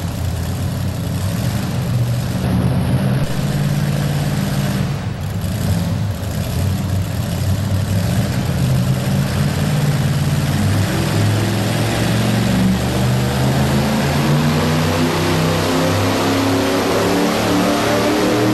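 A supercharged Chevrolet pulling truck engine runs at a loud, steady pace on the starting line. From about halfway through, its pitch climbs steadily as the truck launches and starts its pull.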